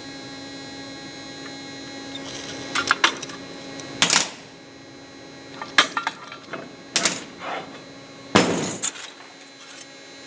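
Steel parts and tools clanking and knocking, about seven sharp strikes spread over several seconds, one with a short scraping tail, over a steady shop hum.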